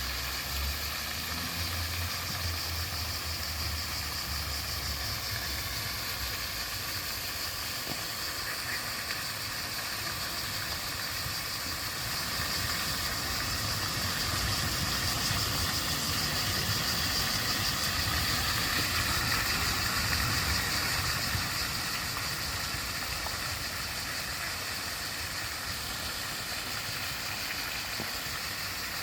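Steady rush of flowing water, a little louder for several seconds in the middle, with a low rumble under it in the first few seconds.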